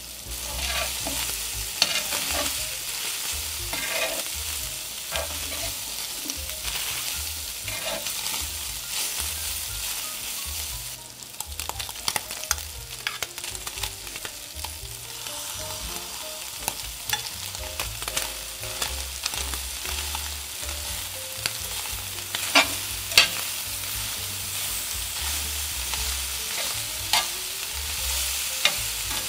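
Diced meat frying and sizzling in a pan while being stirred, the utensil clicking and scraping against the pan now and then, with two sharp knocks a little past two-thirds through.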